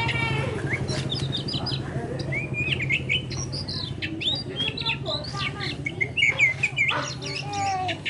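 Oriental magpie-robin (kacer poci) singing: a varied run of short whistled notes, chirps and trills that rise and fall, over a steady low hum.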